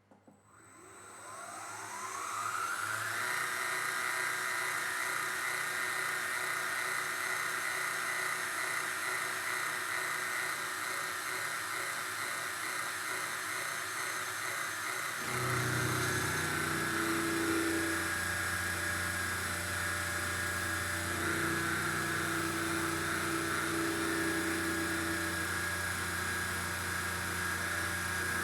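A home-built CNC milling machine's spindle spins up with a rising whine over the first few seconds, then runs steadily at a high pitch. About halfway through, a lower hum joins, with a wavering tone above it.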